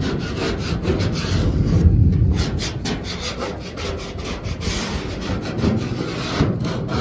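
A scraper dragged in repeated rough strokes over the Ford F100's steel cab, scraping off paint softened by paint stripper. The paint is coming off only in patches, which the owner puts down to too little stripper having been applied.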